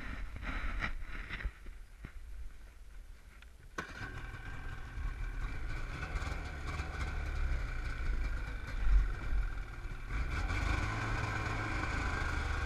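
Snowmobile engine running as the sled moves through the snow; the engine sound comes in suddenly about four seconds in and grows louder near the end.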